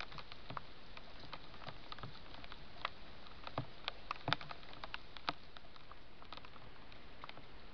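Small irregular clicks and crunches of a fox and a hedgehog eating side by side at a feeding spot, over a steady hiss; the clicks thin out near the end.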